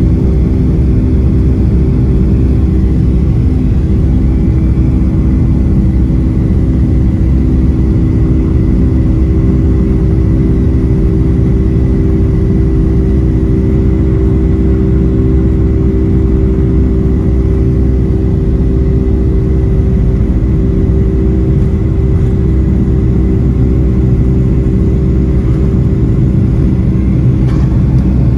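Boeing 757-200's twin turbofan engines at takeoff power, heard inside the cabin from a seat over the wing: a loud, steady rumble with a sustained engine hum during the takeoff roll.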